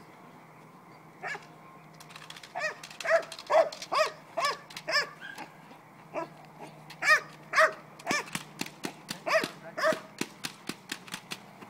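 Dog barking in a rapid series of short, sharp barks during bitework, mixed with sharp cracks that come thick and fast near the end.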